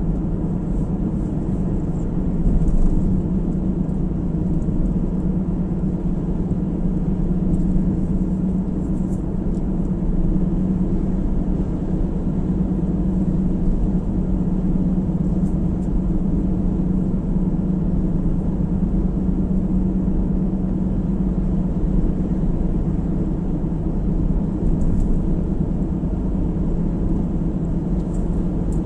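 A car driving along at steady speed: a constant low rumble of road and engine noise with a steady drone, unchanging throughout.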